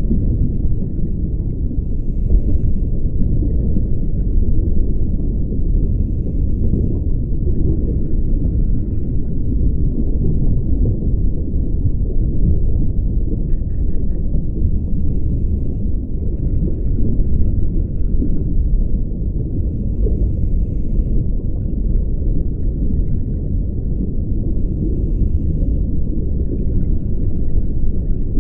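Underwater ambience picked up through a dive camera's housing: a steady low rumble of water. Faint hissing comes and goes every few seconds from a scuba diver's regulator breathing.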